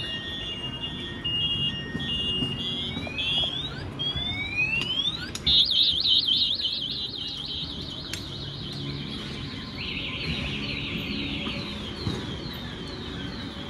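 A vehicle anti-theft alarm cycling through its siren patterns: repeated falling chirps, then rising whoops, then a louder warble about five seconds in, and a fast trill near the end, over low street noise.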